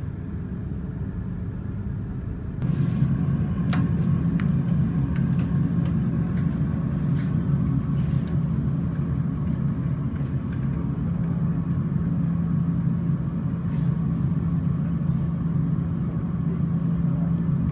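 Steady low rumble of an Airbus A320 flight simulator's simulated engine and ground-roll noise in the cockpit, stepping up louder about two and a half seconds in. A few light clicks sound over it.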